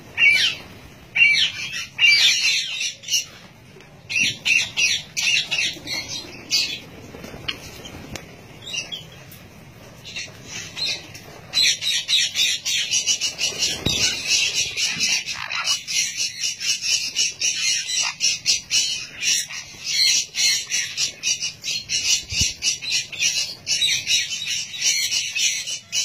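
A flock of small parrots, chiefly sun conures with lovebirds and budgerigars, calling and squawking in short, sharp, high-pitched screeches. The calls come in scattered bursts at first, then turn into a dense, unbroken chatter about halfway through.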